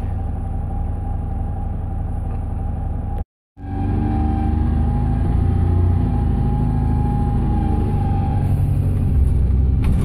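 Bus engine running, heard inside the passenger cabin as a steady low rumble with a faint steady whine above it. It drops out for a moment about three seconds in, then comes back louder as the bus drives along.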